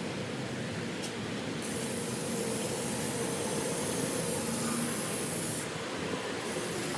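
Car wash high-pressure wand spraying water onto a CNC machine table to degrease it: a steady hiss that turns brighter about a second and a half in and dips briefly near the end.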